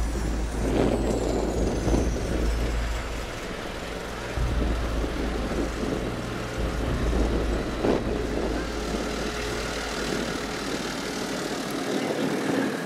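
A minibus engine idling with a low, steady rumble, mixed with wind on the microphone.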